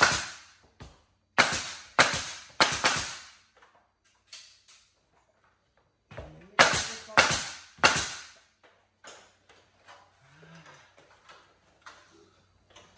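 Nail gun firing as crown molding is fastened to the wall: a group of four sharp shots, then a few seconds later three more, with a few faint clicks between.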